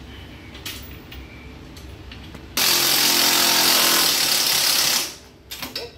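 Cordless drill running at speed for about two and a half seconds, starting about two and a half seconds in and stopping abruptly, driving a screw into the go-kart's hood mount. Light handling clicks come before it.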